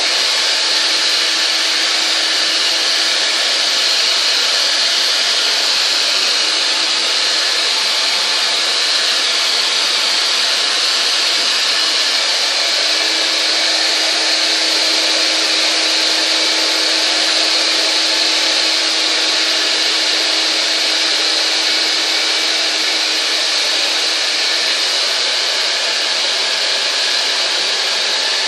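Hand-held hair dryer running steadily, blowing air through long wet hair during a blow-dry, a continuous even rush of air.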